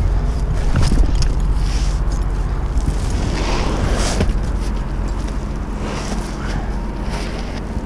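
Wind buffeting the microphone in a steady low rumble, with intermittent scraping and rustling as bundles of asphalt shingles are slid and shifted on the plywood roof deck.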